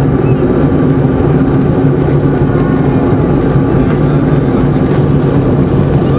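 Jet airliner's engines running at takeoff power as heard inside the cabin during the takeoff roll: a loud, steady drone with a low hum over a rumble.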